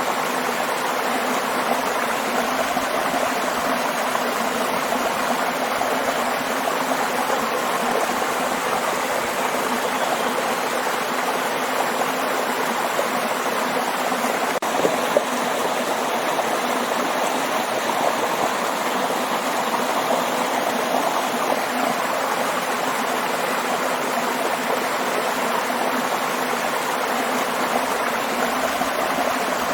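Waterfall: a steady, even rush of falling water, with two brief louder splashes about halfway through.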